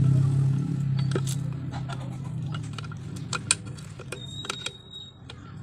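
Scattered sharp metallic clicks and clinks of small motorcycle engine parts being handled and fitted by hand. Under them, a vehicle's engine hum fades away over the first three seconds.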